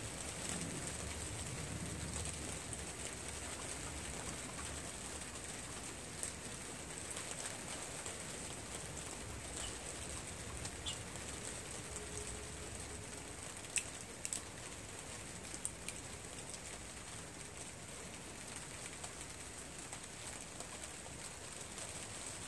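Light rain falling steadily, with a bird calling faintly and a few light clicks about two-thirds of the way through.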